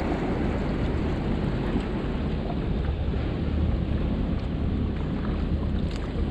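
Steady rumbling noise of wind and sea water, with no distinct events.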